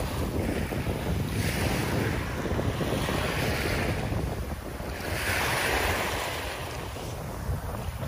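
Small waves washing up on a sandy beach, the hiss swelling and fading in surges a few seconds apart, over a steady rumble of wind on the microphone.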